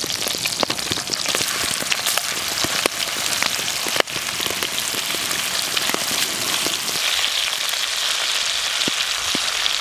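Grouse meat frying in hot bear fat in a cast-iron skillet: a dense, steady sizzle full of small spitting pops.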